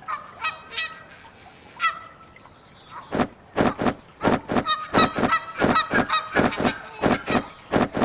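Egyptian geese honking: a few scattered calls at first, then from about three seconds in a rapid run of loud, harsh honks, about three a second.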